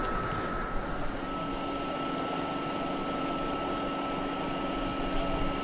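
Steady hum of a running engine, with a constant high whine and a lower drone that comes in about a second in, over outdoor background noise.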